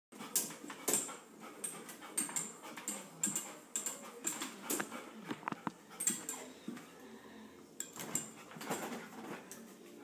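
A golden retriever's claws scraping and tapping against a refrigerator door as it paws at it, in irregular sharp strokes about two a second that thin out in the last few seconds.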